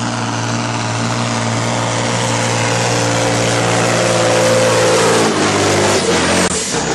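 Truck-pulling truck's diesel engine running hard under heavy load as it drags the weight sled down the track, a steady note growing louder. About five seconds in the note drops away, and it falls off again near the end as the pull ends.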